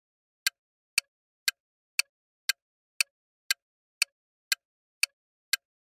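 Quiz countdown-timer sound effect ticking: evenly spaced sharp clicks, two a second, starting about half a second in, with silence between the ticks.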